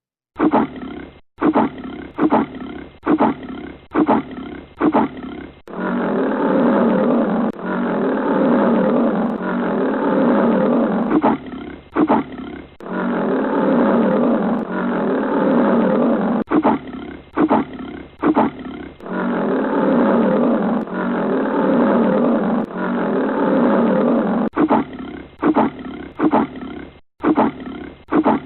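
Lion roaring: runs of short grunts, about two a second, alternate with long drawn-out roars lasting several seconds, the cycle repeating about four times.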